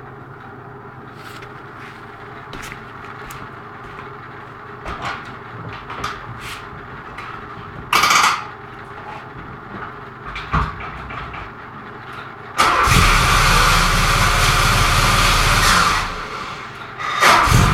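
Wartburg 1.3's four-cylinder four-stroke engine started from cold, heard at the exhaust. After a quiet stretch with a low hum and a few clicks and knocks, it starts suddenly about two-thirds of the way in and runs loudly, then dips and picks up again near the end, the surging run the owner likes in it when cold.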